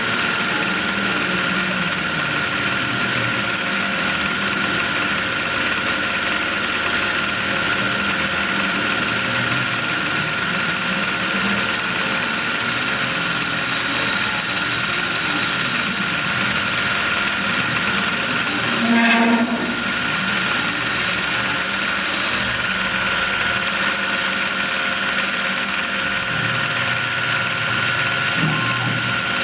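Tormach PCNC 1100 spindle running steadily with a high whine while a turning tool cuts a spinning metal bar on the Duality Lathe attachment. About two-thirds of the way through there is a brief, louder burst of tool chatter, caused by a tool shape that does not suit the CNC program.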